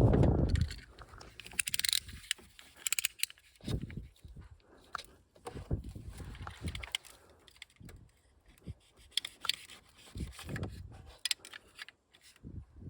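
Irregular hand work with tools and car parts: scattered clicks and light scrapes, with a few dull thumps.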